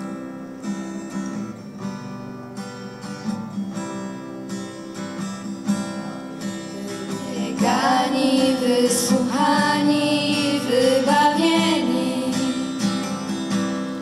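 Acoustic guitar playing a song's introduction; about halfway through, girls' voices come in singing the melody over it.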